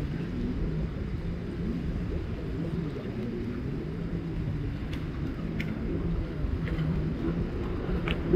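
Jet ski engines running out on the water: a steady low drone whose pitch wanders up and down as the craft speed up and slow.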